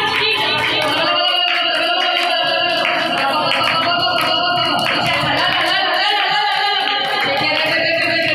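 Worship singing over music with a steady beat.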